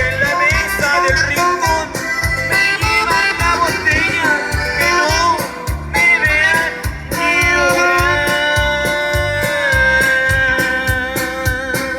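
Rock band playing a song: drums keeping a steady beat under guitar and a singing melody line, with one long held note about seven seconds in.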